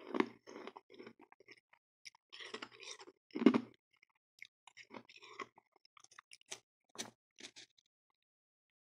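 Mouth crunching and chewing powdery freezer frost and crushed ice, in irregular bursts of crunches, the loudest about three and a half seconds in, then sparser, lighter crackles.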